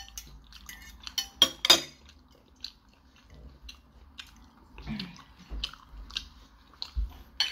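Fork clinking and scraping against a plate of creamy pasta, with chewing and biting sounds in between. The loudest are two sharp clinks close together a little over a second in.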